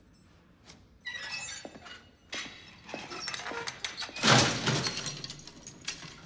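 A bunch of keys jingling and the lock of a barred steel cell door being worked, with metallic clanks; the loudest clatter comes about four seconds in.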